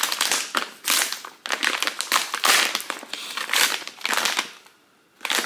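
A plastic snack bag crinkling and crackling in a quick run of snaps as it is pulled at to get it open, with a brief pause near the end.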